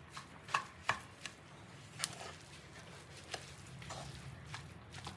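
A spoon stirring and mixing soft vegetable momo stuffing in a non-stick pan, knocking and scraping against the pan in light, irregular taps.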